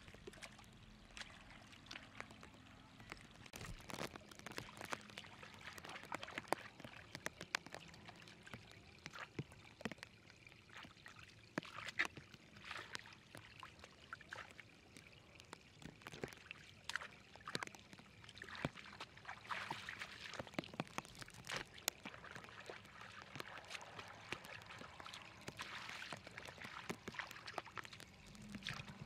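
Shallow muddy water running through a narrow channel, with many short splashes and sloshes as hands scoop and grope through it.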